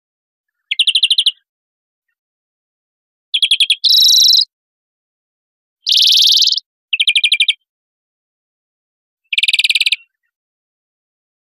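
European greenfinch song: five short phrases of rapid twittering trills, each about half a second, separated by pauses, with a longer buzzy wheeze about four and six seconds in.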